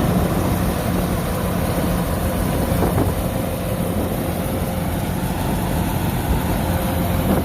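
Kubota DC-105X combine harvester running steadily as it harvests rice, a constant low engine drone.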